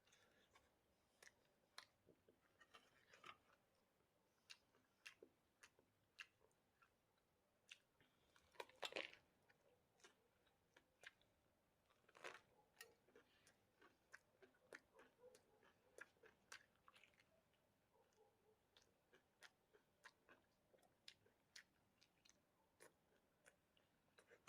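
Faint chewing and crunching of food, heard as scattered small clicks and crunches with a short cluster about nine seconds in.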